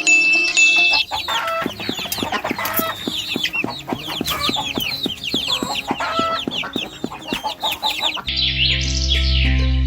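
Chickens clucking, a dense run of short calls, over background music; near the end steady music takes over.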